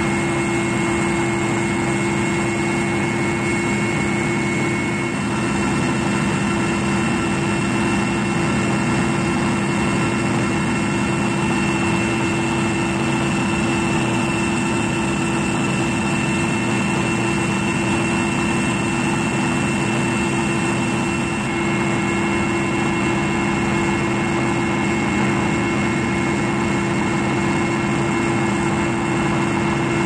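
Helicopter in flight, heard from inside the cabin: a loud, steady drone of turbine engines and rotor with a constant high whine.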